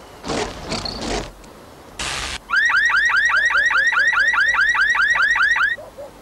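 Car alarm siren sounding: a loud, fast, repeating rising whoop, about five a second for some three seconds, then cutting off. It is preceded by two short bursts of noise.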